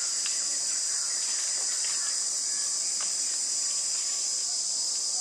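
A steady, high-pitched insect chorus in the trees, with a few faint ticks beneath it.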